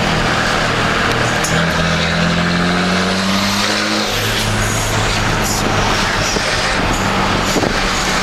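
Dodge pickup's turbocharged Cummins inline-six diesel pulling under way. The engine pitch rises as it accelerates, drops at a gear change about four seconds in, then runs steadily.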